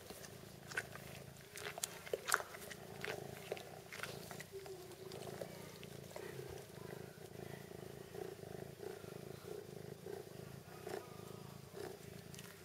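A kitten nursing and purring steadily, with wet sucking and smacking clicks in the first few seconds that settle into a soft rhythmic suckle about twice a second.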